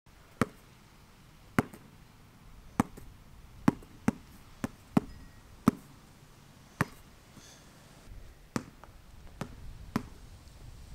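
A basketball being dribbled on a concrete driveway: about a dozen sharp bounces at an uneven pace, roughly one every half second to second.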